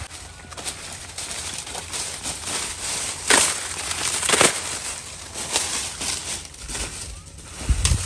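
Dry corn stalks, leaves and husks rustling and crackling, with several sharp snaps, as a person works through the stalks picking and handling ears of corn by hand.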